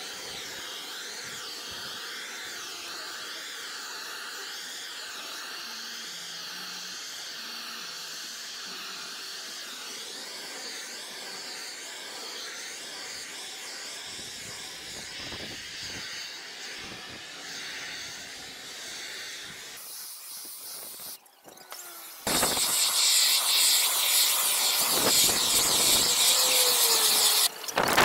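Propane shrink-wrap heat gun hissing steadily as it heats the plastic wrap. About 22 seconds in, a much louder, rushing hiss cuts in for several seconds, then stops.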